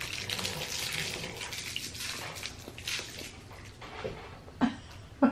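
Wet mouth sounds of someone sucking and chewing a hard black licorice candy with a salty filling. The mouth noise crackles for the first second or so, then goes quieter, with two short, sharper sounds near the end.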